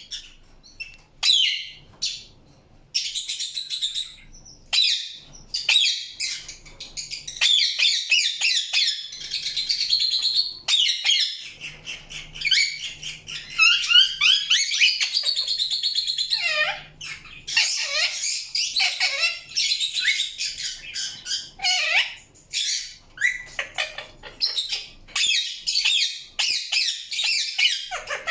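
Indian ringneck parakeet chirping in long runs of rapid high notes, with brief breaks and a few calls that fall in pitch.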